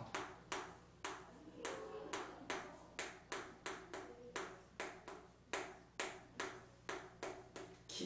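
Chalk writing on a chalkboard: a quick run of sharp taps and short scrapes as each stroke of the letters is laid down, about two or three a second.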